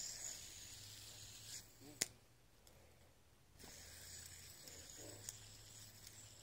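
Fidget spinner whirring faintly on its bearing with a high hiss. A sharp click about two seconds in, the loudest sound, is followed by a pause before the whir starts again, with a smaller click later.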